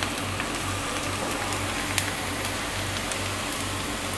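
Chopped onion and garlic sizzling in oil in a frying pan on medium-low heat, with a steady hiss and scattered small crackles and ticks as they are stirred with a silicone spatula.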